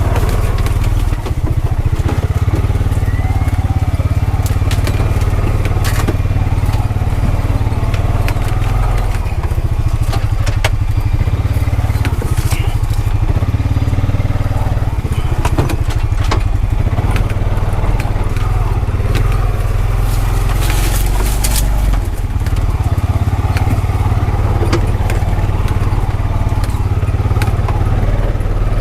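Honda Pioneer 520 side-by-side's engine running steadily under way, with many sharp crunches and crackles from the tyres rolling over sticks and logging debris.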